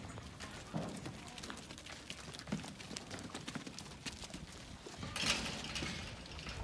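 Hooves of Hijazi and Ardi-cross goats stepping and shuffling on a pen's dirt floor: scattered light taps and clicks, with a brief louder rustle about five seconds in.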